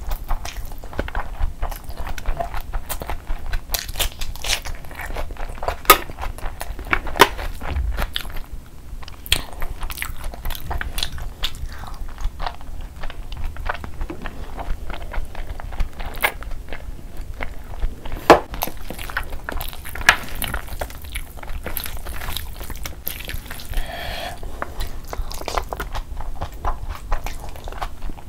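Close-miked chewing and biting as mouthfuls of mutton kabsa rice are eaten by hand, going on steadily, with a few sharper, louder clicks standing out.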